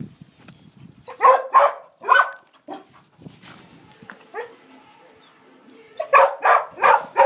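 Border collie barking: a few sharp barks about a second in, then a quick run of barks near the end.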